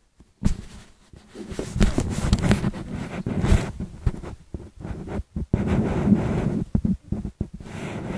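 Phone microphone handling noise: irregular rustling and rubbing as the phone is moved against hair and clothing, in uneven surges with brief sudden dropouts.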